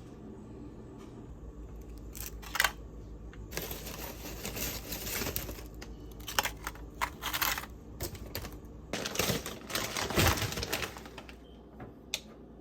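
Handling noises of lunch packing: irregular clicks, taps and rustling of food containers and packaging, busiest in the second half, with a sharp click near the end.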